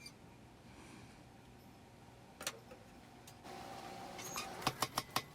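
A lull with one sharp metal knock, then a power hammer starting a fast, even run of blows, about five or six a second, in the last second or so.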